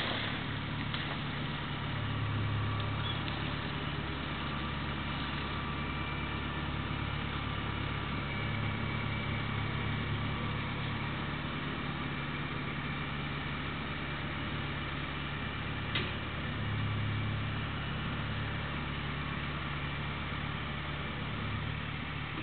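Compact loader tractor's engine running steadily under load as the tractor, its bucket full of dirt, pulls up out of a ditch, swelling a little in level a few times. A single short click sounds about 16 seconds in.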